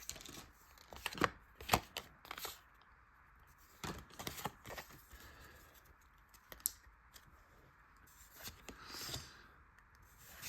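Foil Pokémon booster pack wrapper being torn open and handled, in short scattered rustles and crinkles with a few sharp clicks.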